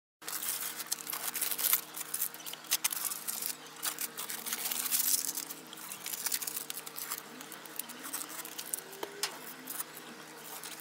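Masking tape and paper being peeled off a freshly painted wheel and tyre, giving a dense, irregular crackling and tearing.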